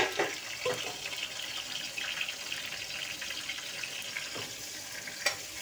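Chopped tomatoes, onions and green chillies frying in oil in a kadhai: a steady sizzle, with a few knocks and scrapes of a metal spatula against the pan, mostly in the first second and again near the end.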